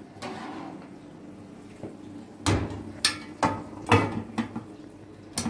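Dishes and metal pans clattering while being washed up: a short scrape near the start, then a series of sharp knocks about half a second apart through the second half.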